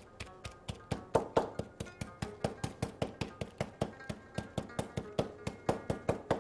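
Metal meat tenderizer mallet pounding a salmon slice wrapped in plastic film on a plastic cutting board: a fast, steady run of taps, about four or five a second, beating the raw fish thin for carpaccio.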